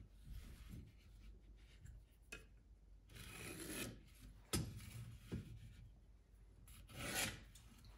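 Faint scratching of a pencil drawing lines on a tupelo wood block along a steel combination square, with the square sliding over the wood and a couple of light taps as it is set down.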